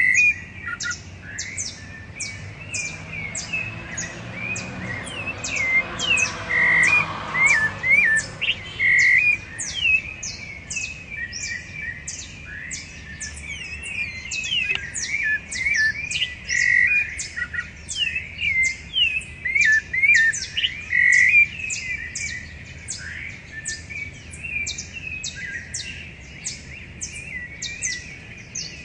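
Several rufous-bellied thrushes singing in a dawn chorus: overlapping whistled phrases with quick rising and falling glides. Underneath runs a steady train of short high notes, about two a second.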